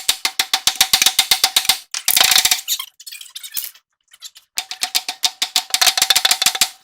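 Rapid metal-on-metal strikes, about nine a second, on a steering arm, with the steel ringing at each blow, in three runs broken by short pauses. They are being struck to shock the tie rod end's tapered stud loose.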